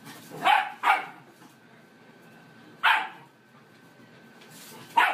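A puppy barking four times in short barks: two in quick succession near the start, one about three seconds in, and one near the end.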